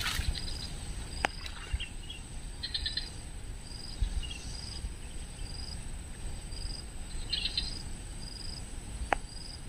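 Wetland night-and-day chorus of insects and frogs: a steady high insect drone, a short high chirp repeating a little more than once a second, and a few brief bursts of rapid pulsed calls. Two sharp clicks stand out, about a second in and near the end, over a low rumble.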